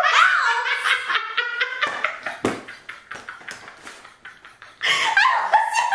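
Two women laughing hard: a high burst of laughter, then rapid pulsing laughs that die away to quiet about three seconds in, and loud laughter again near the end.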